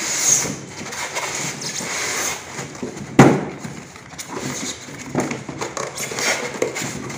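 Cardboard toy box with a clear plastic window being handled and opened, rustling and scraping, with one sharp knock a little over three seconds in.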